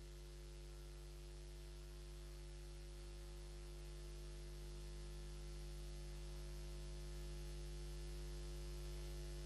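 Steady electrical mains hum with a faint hiss on the audio line, a little louder towards the end.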